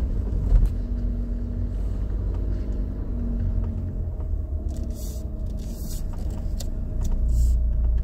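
A car running slowly over rough gravel, heard from inside the cabin: a steady deep engine and tyre rumble, with a loud bump about half a second in and a few brief crackling clicks from the gravel midway.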